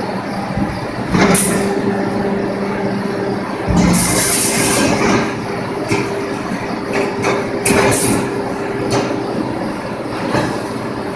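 Factory machine noise at a fence mesh bending machine: a steady machine hum, with scattered clanks of steel wire mesh panels being handled and short hisses about four seconds in and again near eight seconds.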